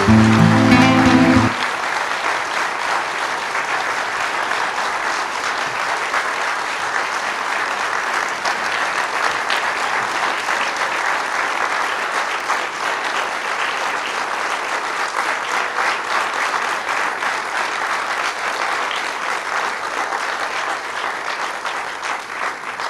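Audience applauding steadily, fading away near the end. The tail of a piece of music cuts off about a second and a half in, just as the applause takes over.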